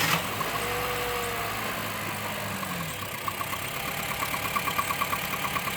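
2011 Honda City 1.5 four-cylinder idling cold, with a falling tone over the first few seconds and then an even knocking or ticking at about five a second from about three seconds in. This is the strange noise the owner gets only when the car is cold and he shifts the automatic from Park into gear; it goes away after 40 seconds to a minute.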